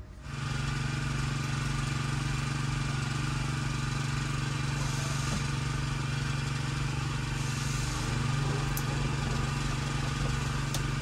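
A steady mechanical drone of a running motor, with a low hum underneath; a couple of faint clicks near the end.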